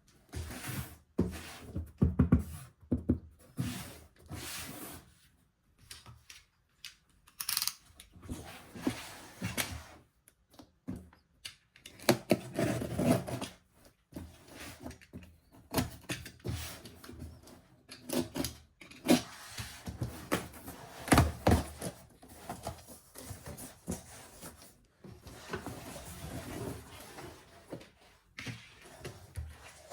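Irregular handling noises: knocks, thuds and rubbing of packaging and plastic as a boxed mini fan is unpacked.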